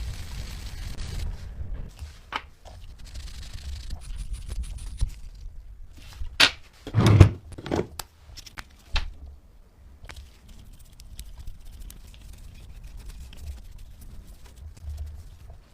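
Work noises: scattered knocks and clicks with faint scraping between them, the loudest a cluster of knocks about seven seconds in.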